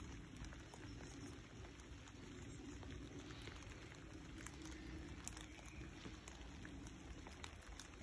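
Faint patter of rain, with scattered light ticks of drops falling.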